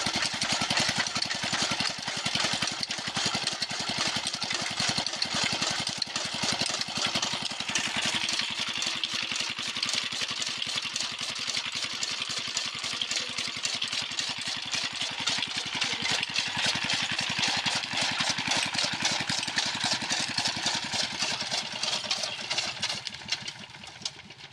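Old Petter diesel engine running steadily with an even chugging beat as it drives a chaff cutter, whose flywheel and blades chop green fodder. The sound fades down near the end.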